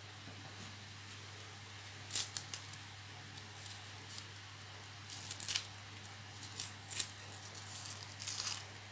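Shallots being peeled with a kitchen knife over a wooden chopping board: small dry crackles and scrapes of papery skin being picked and cut away, in short clusters about two, five, seven and eight seconds in. A steady low hum runs underneath.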